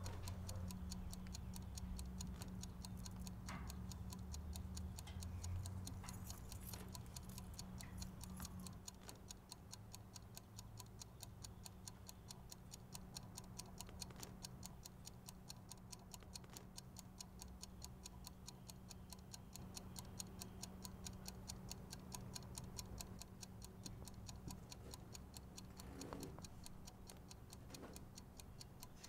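Wind-up kitchen timer ticking in a quick, even rhythm, with a faint low hum under it for the first several seconds.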